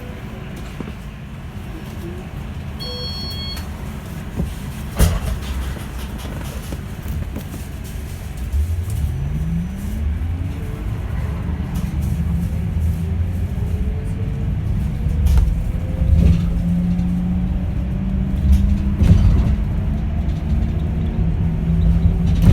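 Yutong E12 electric bus pulling away: its permanent-magnet electric motor whine rises steadily in pitch for several seconds as the bus gathers speed, over a low rumble that grows louder. A brief high beep comes about three seconds in and a sharp knock a couple of seconds later.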